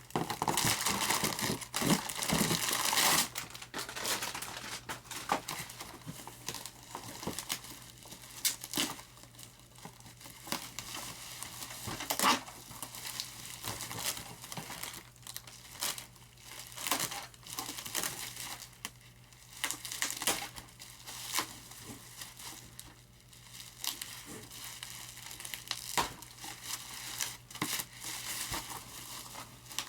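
Thick plastic wrapping crinkling and tearing as it is pulled off model airplane parts, dense for the first three seconds, then scattered crackles and clicks as it is handled.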